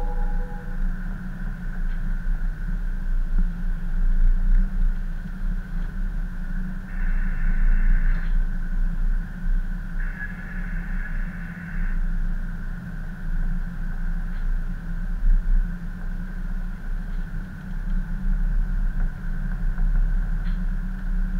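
Steady low rumble of a tug's diesel engines running in heavy seas, rising and falling in loudness, with a brighter hiss coming in twice, about seven and ten seconds in.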